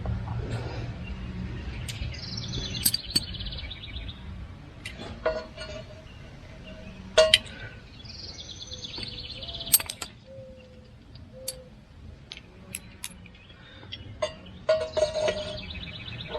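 A songbird sings the same short song three times, each a falling note that breaks into a fast trill, while metal parts clink and tap now and then as bolts and a guard are worked on a tractor.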